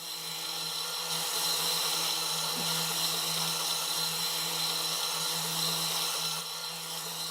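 A small electric motor running steadily at constant speed, giving an even hum with a high whirring hiss.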